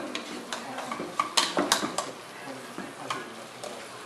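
Spatula scraping and knocking against a stainless steel pot while pork ribs are stirred with garlic and ginger over high heat, as a string of irregular clinks over a faint sizzle.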